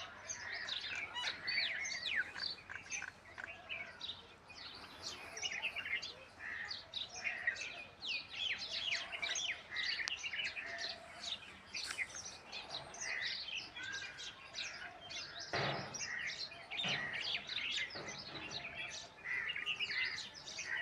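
Many small birds chirping at once, a dense, unbroken chatter of short falling chirps. Two dull knocks come about three-quarters of the way through.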